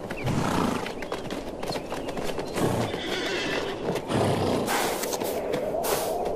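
Namib desert feral horse making low vocal calls, about three of them, with a run of sharp hoof clicks and knocks, loudest in the second half.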